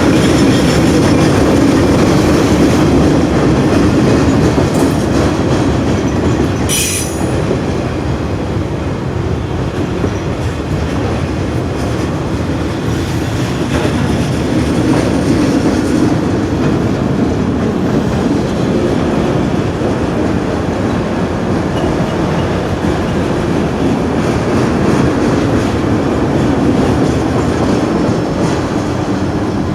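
Freight train cars rolling steadily past, steel wheels rumbling and clattering over the rails, with one brief high wheel squeal about seven seconds in.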